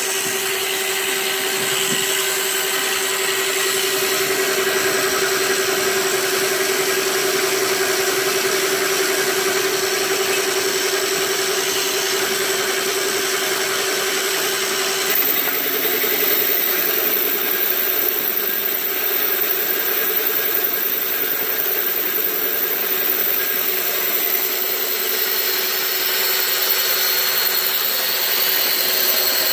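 Power-driven line-boring bar turning steadily in the windmill head's cast-iron gearbox, cutting out the bull gear bearing bores oversize. It is a steady machine drone with a held tone. About halfway the tone drops out, the sound grows slightly louder and a faint high whine joins.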